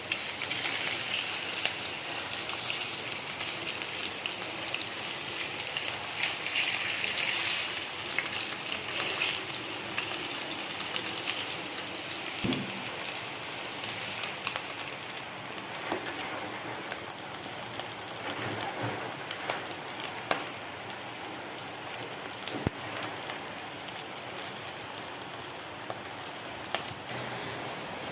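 Slices of Khmer sticky rice cake (num ansom) frying in hot oil: a steady sizzle full of small crackles and pops. It is stronger in the first ten seconds or so and eases after, with a few sharper clicks.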